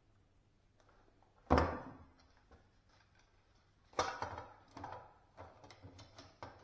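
A sharp knock with a short ring about a second and a half in, a second knock about four seconds in, then a run of lighter clicks and taps: hard parts being knocked and handled during an awning pin repair.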